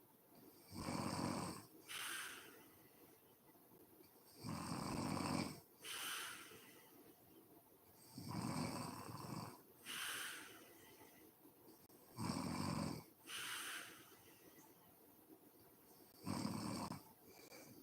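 A woman snoring in her sleep: five loud snores about four seconds apart, each followed by a shorter, hissier breath.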